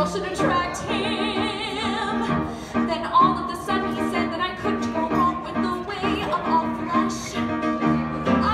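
A woman singing a musical-theatre song into a handheld microphone, with held, wavering notes, accompanied by piano chords.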